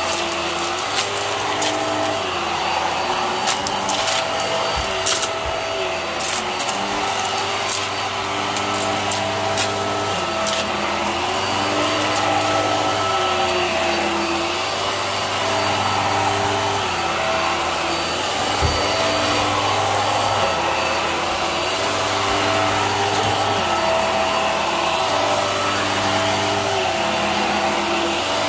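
Hart stick vacuum running on carpet, its motor tone dipping and rising every couple of seconds as it is pushed back and forth. Sharp ticks of small debris being sucked up come through the first ten seconds or so.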